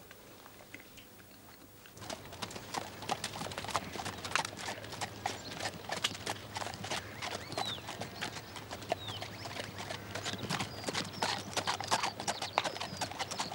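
Hooves of two ridden horses clip-clopping in a steady run of hoofbeats, starting about two seconds in after a short quiet.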